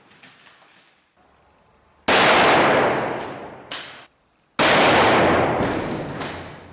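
Two breaching shotgun blasts about two and a half seconds apart, each ringing on and dying away over a second or more. A short sharp crack falls between them.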